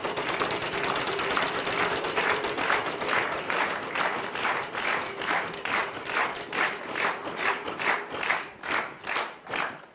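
Game-show prize wheel spinning, its pointer clicking over the pegs, fast at first and slowing steadily until it stops near the end.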